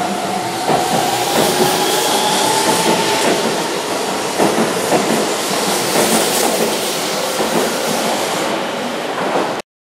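Keihan 13000 series electric train pulling out and accelerating along the platform, its traction motors whining and rising slowly in pitch over the clatter of wheels on rail joints. The sound cuts off suddenly near the end.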